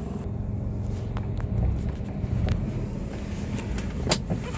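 Toyota Wigo's engine running steadily on its stock exhaust, a low even rumble, with a few light clicks and knocks, the clearest near the end.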